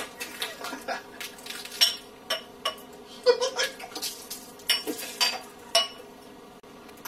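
Glass clinking and tapping again and again, about once or twice a second, as a bottle is opened and poured into a small glass, with some chuckling.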